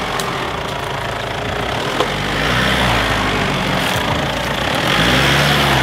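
Ford Ranger ute's engine working at low revs as it crawls over rocks on a steep track, its pitch rising and falling with the throttle, over a steady rushing noise, with one sharp knock about two seconds in.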